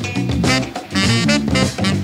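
Instrumental background music in a swing style, with a bass line and a steady beat.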